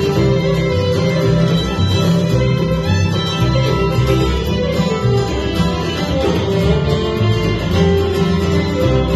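Acoustic bluegrass band playing live: fiddle, acoustic guitar, mandolin and upright bass in an instrumental passage without vocals.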